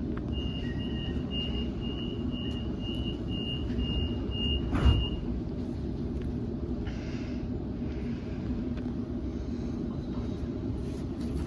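Door-closing warning on a Sydney Trains Waratah A set: a run of about ten short high beeps, roughly two a second, ending with the doors shutting with a thud about five seconds in. Under it and afterwards, the standing train's steady low hum.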